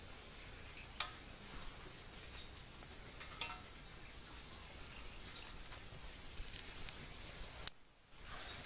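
Small wood fire of twigs crackling faintly inside an Emberlit stamped stainless-steel backpacking stove, with a couple of sharp snaps, one about a second in and one near the end.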